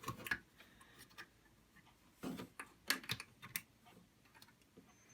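Scattered sharp clicks and snaps from a 72-pin SIMM slot as its retaining tabs are pushed and the memory module is worked loose from the socket, a few right at the start and a cluster about two to three and a half seconds in.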